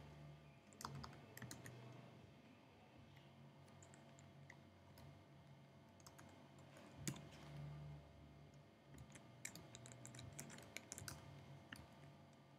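Faint keystrokes on a computer keyboard: scattered taps, then a quicker run of keys about nine to eleven seconds in.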